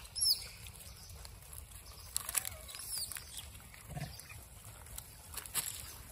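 A troop of rhesus macaques feeding, with a few short rising-and-falling calls and scattered clicks and rustles over a low steady rumble.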